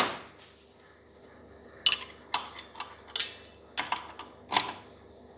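Metal clinking and clicking as a nut is tightened with a wrench on a bolt held in a vise, clamping a car clutch disc: about seven sharp clinks over the second half.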